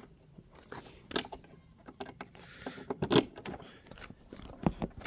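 A few light knocks and clicks of handling, with faint rustling between them, about three sharper knocks spread through.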